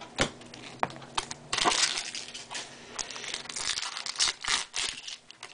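Baseball trading cards and a wax pack wrapper being handled at close range: crinkling and rustling with sharp little clicks, heaviest for a moment about a second and a half in and again between three and a half and five seconds in.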